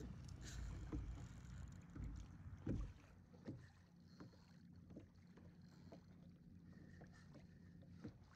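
Faint handling sounds on a fishing kayak as a spinning reel is cranked against a hooked fish: a low rumble for the first three seconds, then scattered small clicks and knocks, the loudest a knock a little under three seconds in.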